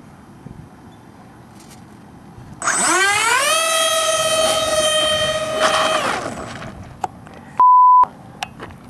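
Twin electric ducted fans of an RC model A-10 spooling up quickly to a steady high whine for a takeoff run, held for about three seconds, then throttled back and winding down. Near the end comes a short pure-tone censor bleep.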